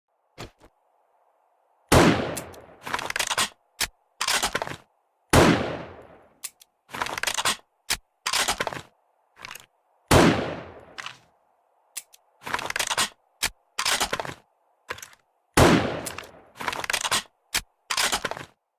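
Remington Model 700 BDL bolt-action rifle fired four times, each shot loud and fading away. Between the shots come groups of short, sharp clicks as the bolt is worked to chamber the next round.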